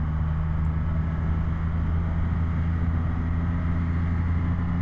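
Triumph Rocket 3 R's 2,458 cc inline three-cylinder engine running at a steady pitch while cruising at about 100 km/h.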